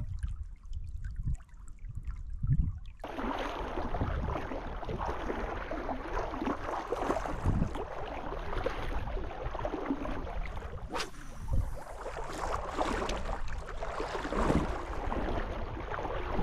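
Wind rumbling on the microphone for about three seconds, then water sloshing and splashing as legs wade through shallow lake water, irregular and continuous.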